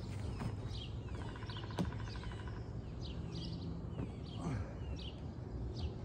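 Wild songbird chirping short calls over and over against a steady low outdoor rumble, with a short rattling trill about a second in and a single sharp click near two seconds.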